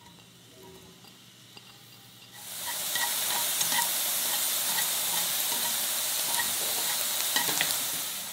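Diced shiitake mushrooms sizzling in hot oil in a nonstick wok while being stirred, with light clicks of the wooden utensil against the pan. The sizzle starts about two seconds in and fades near the end.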